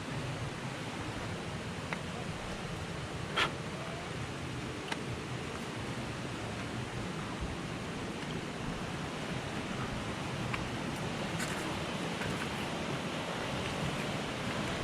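Mountain stream rushing steadily through a rocky gorge, with a few light clicks over it, the sharpest about three and a half seconds in.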